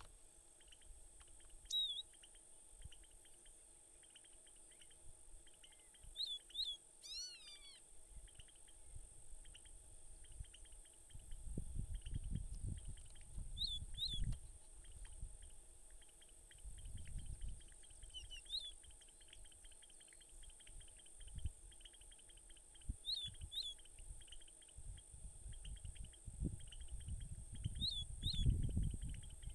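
Male seedeater singing: short, clear high notes, mostly in pairs, every few seconds, with one falling run of notes about seven seconds in. A steady high hiss runs underneath, and a low rumble comes and goes in the second half.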